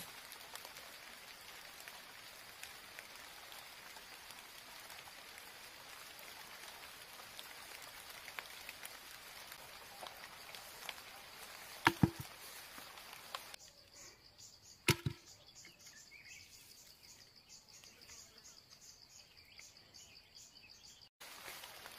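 Sharp knocks on green bamboo as a bamboo trap is worked by hand: two quick knocks about twelve seconds in and a single knock about three seconds later, over a steady hiss that later gives way to a faint high pulsing sound.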